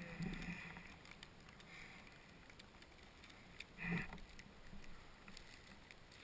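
Snowboard sliding and turning through snow, heard from the rider's helmet: a steady low rush with faint clicks, and a brief louder noise about four seconds in.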